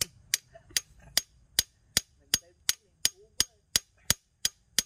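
Ratchet wrench clicking in an even series of sharp clicks, about three a second, as it is worked on a bolt in the diesel cylinder head.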